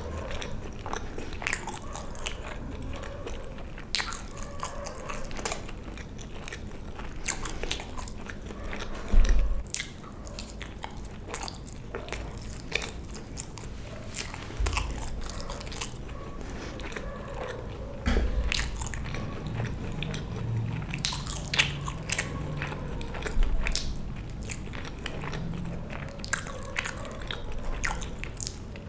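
Close-miked eating: a person biting and chewing food with many sharp, wet clicks and crunches, plus a few dull low thumps.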